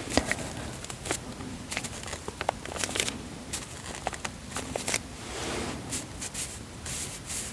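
Close-miked handling sounds: soft rustling with many scattered small clicks and taps.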